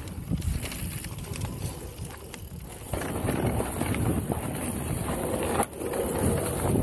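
Wind buffeting the microphone and knobby tyres rolling over a dirt trail as a Canyon Spectral:ON electric mountain bike is ridden, with scattered knocks and rattles from the bike over bumps. The rushing noise steps up louder about three seconds in.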